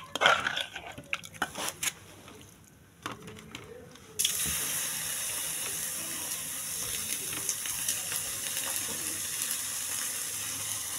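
A metal ladle clinking and scraping in an aluminium pressure cooker pot of goat broth. About four seconds in, a steady high hiss starts suddenly and carries on.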